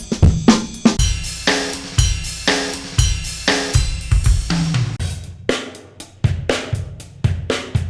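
Drum kit playing a steady beat of bass drum, snare and hi-hat. Cymbals ring through the first half, and the hits are drier and sparser in the second half.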